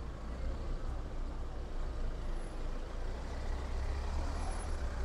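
Street traffic dominated by the steady low engine rumble of a large vehicle, which grows louder about three and a half seconds in.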